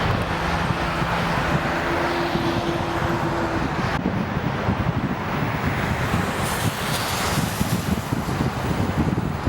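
Strong wind buffeting the microphone, with the faint steady hum of jet airliner engines underneath for the first few seconds before fading out. The sound changes abruptly about four seconds in, after which mostly wind noise remains.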